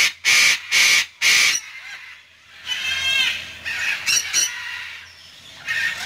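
A parrot squawking loudly: four harsh screeches in quick succession in the first second and a half, then a shorter call about three seconds in and two brief calls near four seconds.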